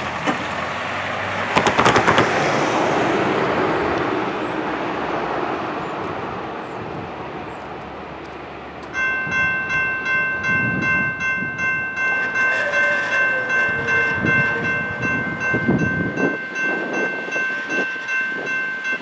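A box truck drives off over the grade crossing, with a brief clatter about two seconds in and its road noise fading away. About nine seconds in, the railroad crossing's warning bell starts ringing in a steady, even rhythm: the crossing signals have been activated for an approaching train.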